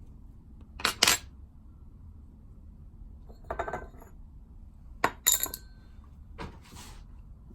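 Small metal clinks and clicks of a bearing puller tool being worked against a baitcasting reel's spool bearing, in four short bursts.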